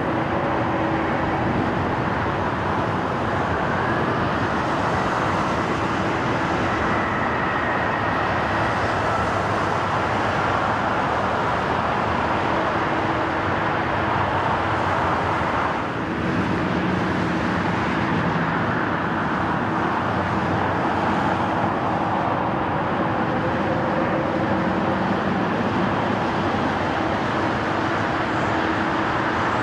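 Jet airliner engines running at an airport: a steady roar with a thin whine over it. The sound changes abruptly about halfway through.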